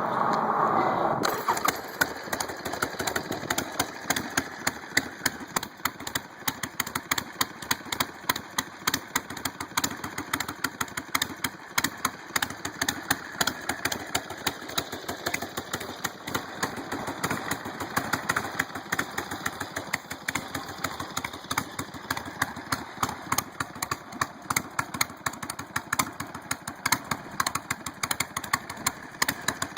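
1978 Harley-Davidson Ironhead Sportster's 1000 cc V-twin running on its first start after restoration: louder for about the first second, then settling to an idle with sharp, uneven exhaust pulses.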